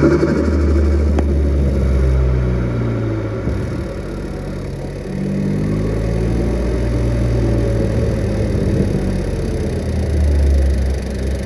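Turbocharged Ford Focus ST engine with full bolt-on modifications being driven, its revs dropping and climbing several times as it pulls and eases off.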